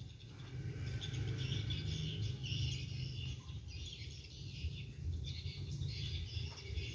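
A red-morph green iguana biting and chewing crunchy leafy greens, in irregular crisp bursts, over a steady low hum.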